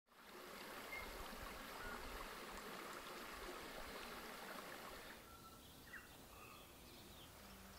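Faint steady rush of flowing river water, quieter after about five seconds, when a few short high chirps come in.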